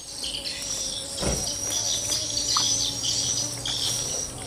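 A steady high chorus of insects chirping and trilling, with bird chirps mixed in and a single soft knock about a second in.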